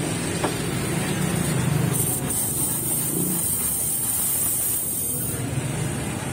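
Espresso machine steam wand opened into the open air, a steady high hiss of steam that starts about two seconds in and cuts off about a second before the end: the wand being purged before the milk is steamed.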